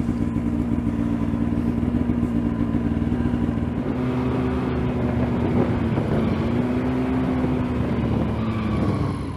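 Snowmobile engine running at a steady pitch while riding over snow. About four seconds in the sound turns rougher, and near the end the pitch sags and the sound fades.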